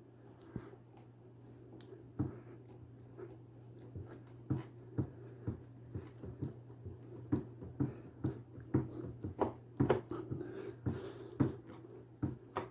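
A screw being driven into a CB radio mounting bracket: irregular clicks and knocks of the screwdriver and hardware, growing busier after a few seconds, over a steady low hum.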